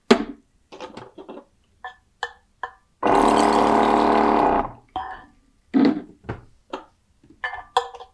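The 12 V liquid filling machine's pump motor runs with a steady, even-pitched hum for about a second and a half, dispensing one timed dose in its automatic fill-and-wait cycle. Small glass bottles clink and knock as they are picked up and set down around it.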